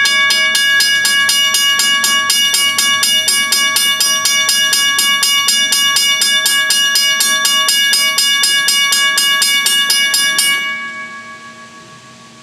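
Railroad crossing signal bell ringing with rapid, evenly spaced strokes, several a second, while the crossing signal is active. About ten seconds in the striking stops and the ring fades away as the signal shuts off.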